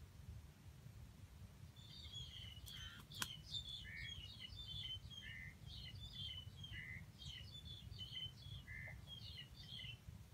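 A bird chirping: a quick run of short, high chirps starts about two seconds in and keeps on almost to the end. Two sharp clicks come about three seconds in, over a faint, steady low rumble.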